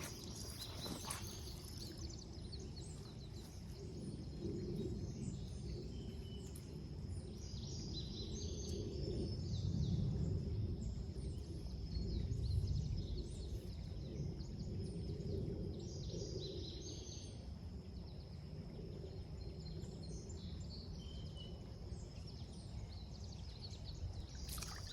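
Outdoor ambience: small birds chirping on and off over a steady thin high-pitched tone and a low rumble that swells twice near the middle.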